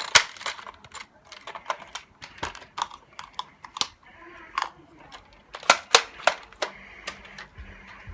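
A string of irregular sharp clicks and knocks, a few each second, loudest just after the start and again near the six-second mark.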